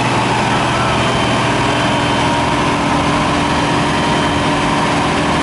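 Diesel engine of a tracked asphalt paver running steadily, with a constant low hum.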